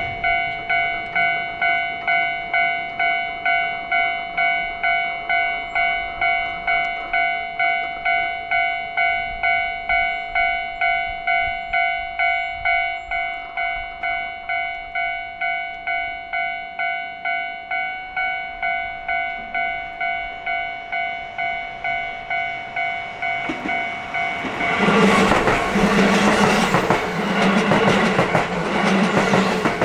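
Japanese railroad crossing warning bell ringing its "kan-kan" about twice a second. About 24 seconds in, a train arrives and passes, its wheels clacking rhythmically over the rail joints, louder than the bell, which keeps ringing.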